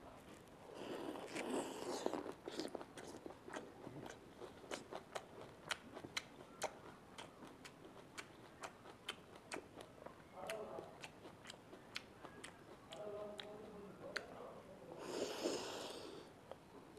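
Black grapes bitten off the bunch and chewed with the mouth open: wet, crunchy chewing with many sharp clicks. Louder biting comes about a second in and again near the end.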